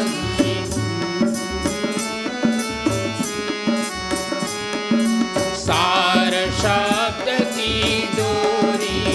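Instrumental interlude of a bhajan: a harmonium plays held notes and a melody over tabla and dholak keeping a steady rhythm of low drum strokes.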